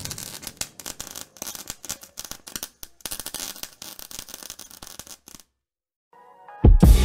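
Welding arc crackling and spitting in an irregular stream of pops, cutting off about five seconds in. After a short silence, music with a drum beat starts near the end.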